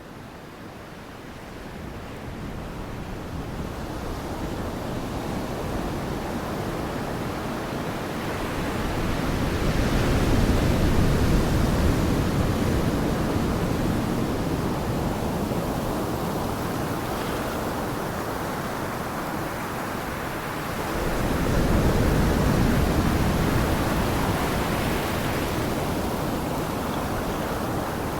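Ocean surf: large waves rushing and breaking, fading in at first, with two big surges, one about ten seconds in and another about twenty-two seconds in.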